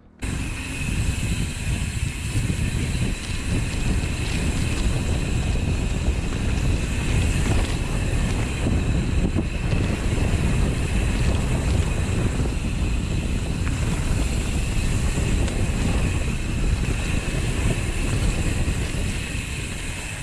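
Steady wind rush buffeting the microphone of a handlebar-mounted camera on a mountain bike riding a dirt singletrack, along with the rumble of the bike rolling over the trail.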